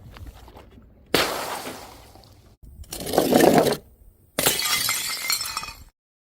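Glass bottles shattering in three separate crashes: a sudden smash about a second in, another around three seconds, and a third past four seconds, each with a ringing, tinkling tail of breaking glass that cuts off abruptly.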